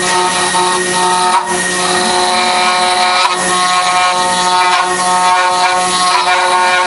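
Five-axis CNC woodworking router running: a steady machine whine of several held tones over a hiss, with a couple of brief clicks.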